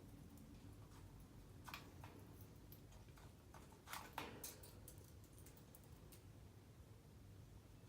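African grey parrot making faint, irregular clicks and taps, with a small cluster of louder ones about four seconds in.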